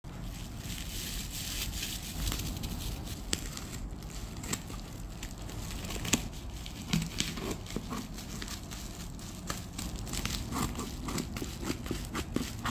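Bubble wrap crinkling and crackling with many sharp little clicks as hands handle a bubble-wrapped cardboard box. Near the end, scissors cut into the wrap.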